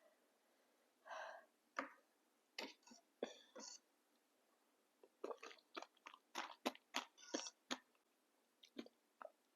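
Close-miked chewing of papdi chaat: crisp fried papdi crunching in the mouth in quick, irregular clicks. It comes in two runs, one about two seconds in and a denser one from about five to eight seconds in.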